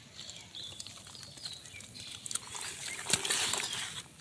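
Hands rustling and scraping through wet grass and leaf litter while grabbing a climbing perch on the ground, with a louder stretch of rustling about three seconds in.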